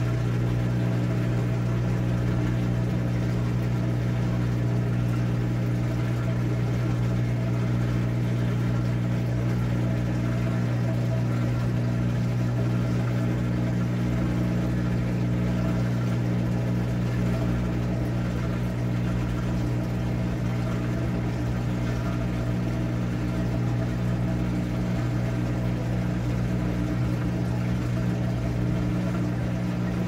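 Top-loading washing machine running with a steady, unchanging low electric hum, while its drum stays still.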